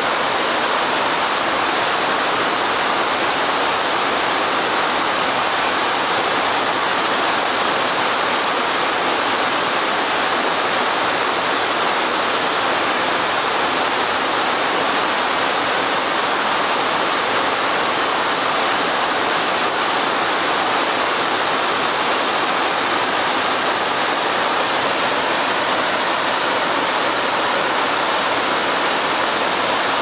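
Cascading waterfall on a mountain river, white water pouring over boulders into a pool in a steady, unbroken rush that is bright and hissing rather than deep.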